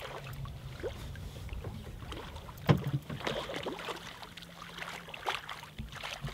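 Water splashing as a hooked speckled trout thrashes at the surface beside the boat, with one sharp loud splash nearly three seconds in and irregular splashing after it.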